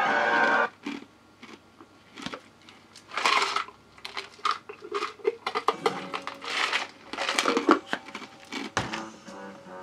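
Cartoon sound effects: a loud rushing noise that cuts off under a second in, then a rapid, irregular run of short clicks, rustles and noisy bursts.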